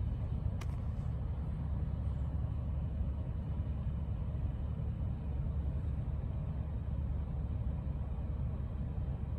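Steady low vehicle rumble heard from inside a moving car's cabin, with a single click about half a second in.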